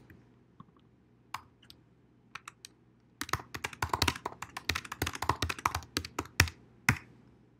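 Typing on a computer keyboard: a few scattered keystrokes, then a quick run of keys starting about three seconds in and stopping shortly before the end.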